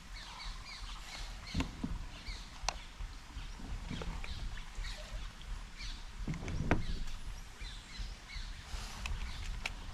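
Small birds chirping over a low rumble, with a few knocks and splashy thuds, the loudest a little past halfway.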